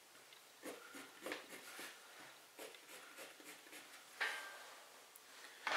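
Marking pencil scratching short strokes onto fabric: faint, a few separate strokes at irregular intervals, the loudest about four seconds in.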